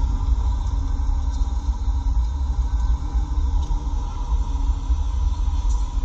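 A deep, steady rumble with a fainter steady hum above it: the so-called strange sound in the sky, low and thunder-like, heard outdoors.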